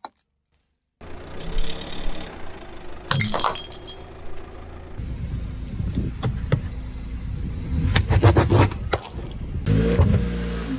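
A car tyre rolling slowly over objects on pavement and crushing them, over a steady low rumble of the tyre on the road. A sharp crunch comes about three seconds in, scattered cracks near the middle, and a quick run of cracks and snaps around eight to nine seconds in.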